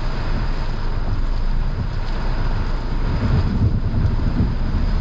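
Heavy rain beating on a car's windshield and roof, heard from inside the cabin, as a steady loud hiss over a low rumble.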